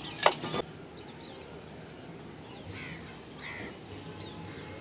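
Two short bird calls, crow-like caws, about halfway through, over faint steady outdoor background noise.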